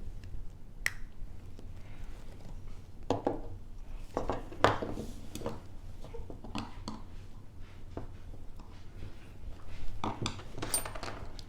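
Irregular small clicks and short scrapes of plastic and metal as a Mercedes key fob is handled and its coin-cell battery is pried out with a small tool, with a sharper click about four and a half seconds in and another near ten seconds.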